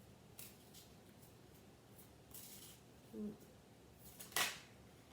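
Faint rustling and sliding of oracle cards being handled, with one sharper card swish about four seconds in.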